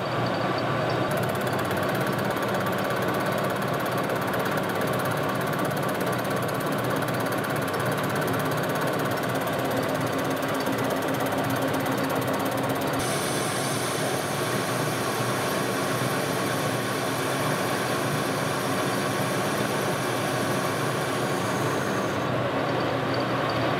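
LeBlond 12" heavy-duty lathe taking a steady facing cut on a cast iron flange with a carbide tool. It is an interrupted cut: the tool strikes the out-of-round, band-sawn blank at each turn. A high hiss in the cutting sound comes in about halfway and drops away near the end.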